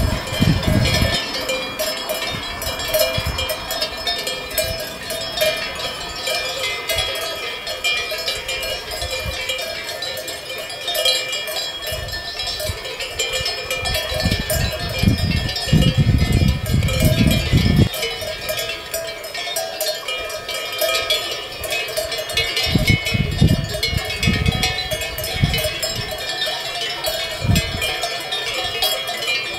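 Many bells worn by a large flock of sheep clanking and tinkling together without a break as the flock moves along, with irregular low rumbles under them.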